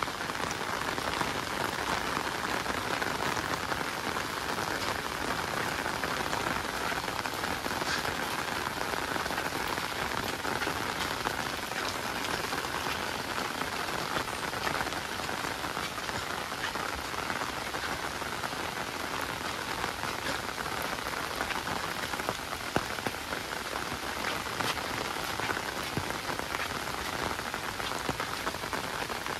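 Rain falling steadily on surfaces: a dense, even hiss with scattered sharper ticks of individual drops.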